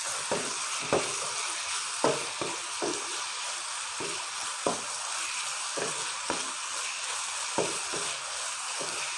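Chicken pieces sizzling in oil in a frying pan. A wooden spatula stirs them, scraping and knocking against the pan irregularly about once or twice a second over a steady hiss.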